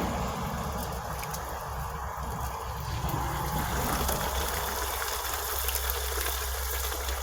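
Flour-dredged venison pieces sizzling and crackling steadily in hot grease in a frying pan, with a low steady rumble underneath.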